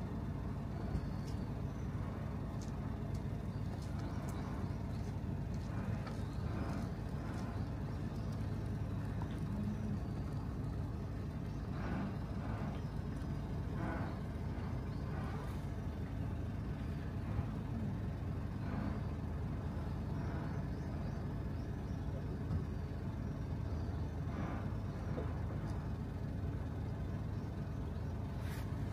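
Steady low mechanical hum, with faint short rustles and taps here and there.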